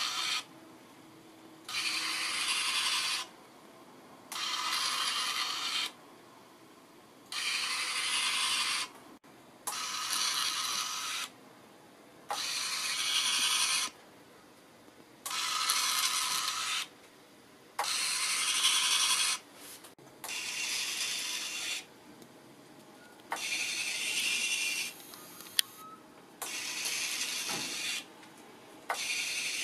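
Homemade retractable landing gear for an RC Nord 2501 Noratlas model, cycled up and down by its small electric motor and gear drive. Each run of motor and gear noise lasts about a second and a half, and about a dozen runs follow one another with short pauses between them.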